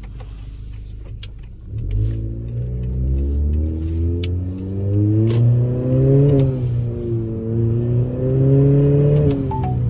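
Honda Accord's turbocharged four-cylinder, heard from inside the cabin through a Borla S-Type cat-back exhaust, accelerating hard: about two seconds in the engine note jumps up and climbs steadily in pitch, drops at an upshift around six seconds, then climbs again and drops once more near the end.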